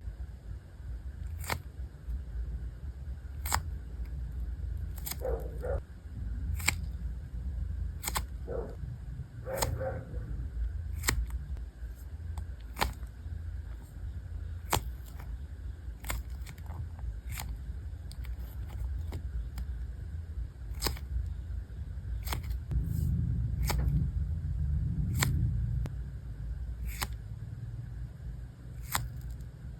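Handling of a soft foam squishy toy close to the microphone: sharp clicks about every two seconds over a steady low rumble, with a louder stretch of rubbing about three-quarters of the way through.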